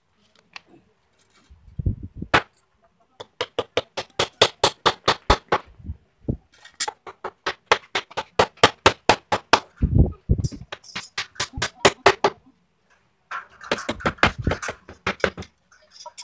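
Rapid hammer blows on the wooden sofa frame, in four runs of about five strikes a second, with a couple of heavier thumps among them.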